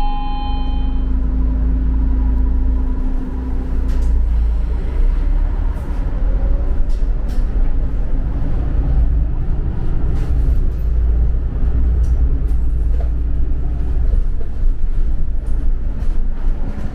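Steady low rumble of a moving vehicle heard from inside the cabin, with light rattles and knocks. A short electronic chime fades out in the first second.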